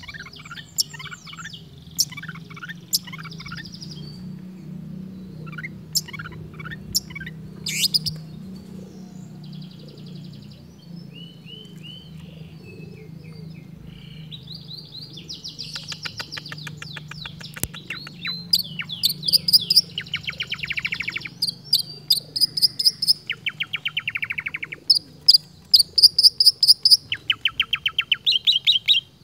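Long-tailed shrike singing a varied run of mimicked bird calls: scattered sharp chirps and sweeping whistles at first, then from about halfway rapid trills and rattling strings of notes that grow louder toward the end. A steady low hum runs underneath.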